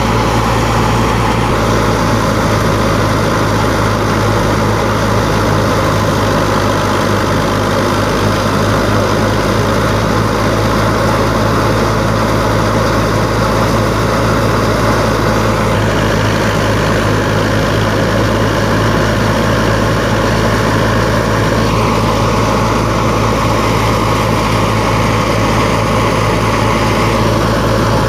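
Fiat 640 tractor's four-cylinder diesel engine running steadily under load, driving a wheat thresher, with the thresher's drum and fan whirring as it threshes.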